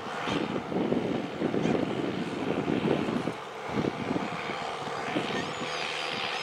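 Heavy diesel machinery working: engine running under a dense rattling clatter, with a higher whine and a few brief squealing tones coming in near the end.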